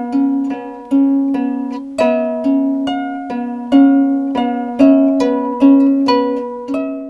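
Intro music of plucked-string notes picked out one after another, each ringing and dying away, over a held low note.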